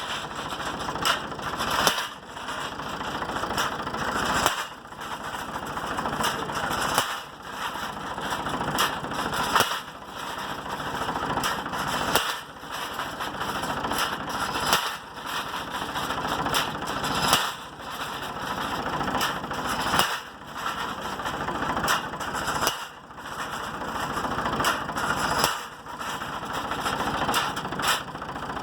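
Pile-driving machine at work: its hammer strikes the pile with a sharp impact about every two and a half seconds, with machinery running steadily between blows.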